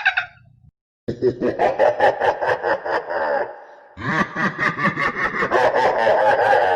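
Laughter sound effect: a person laughing in two bursts, the first starting about a second in and the second after a short pause.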